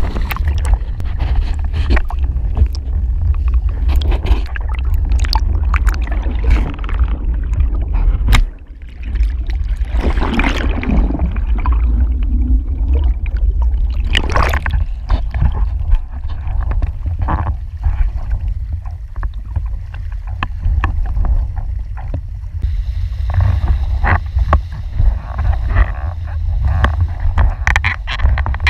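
Wind buffeting the microphone of an action camera mounted on a windfoil board, with water rushing and splashing against the board and many short knocks from the board and rig. About ten seconds in the camera is briefly underwater and the sound turns to gurgling.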